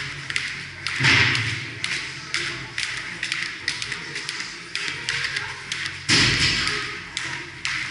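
Repeated knocks and thuds of weights and gym equipment echoing in a large hall, the heaviest about a second in and again about six seconds in, with music playing underneath.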